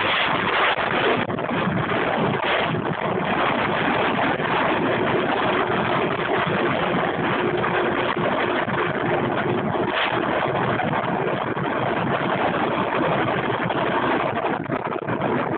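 Steady rush of wind and rolling noise from a fast downhill descent on a mountain road, with a faint steady tone briefly in the middle.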